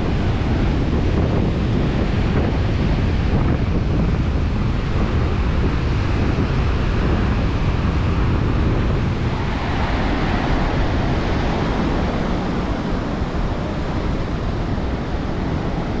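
Ocean surf breaking and washing up the sand, with steady wind noise on the microphone. About ten seconds in the surf hiss grows brighter as a wave washes in.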